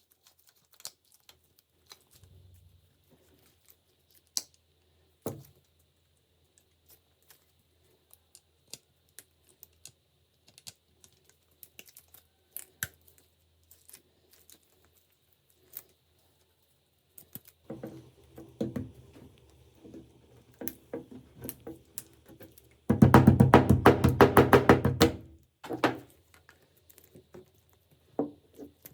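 Bench work on small metal gun parts: scattered clicks and knocks, growing into busier rattling, then a loud fast buzzing rattle lasting about two and a half seconds near the end.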